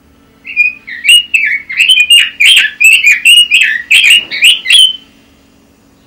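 Red-billed leiothrix (Pekin robin) singing: one fast run of clear whistled notes that slide up and down, starting about half a second in and stopping about five seconds in.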